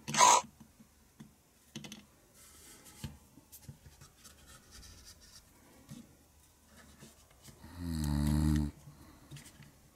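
A snore imitated by a person for the Peppa Pig toy figures as they are laid down to sleep, one drawn-out snore about a second long near the end. A sharp breathy burst comes at the very start, and light clicks and scrapes of plastic figures on the table fall in between.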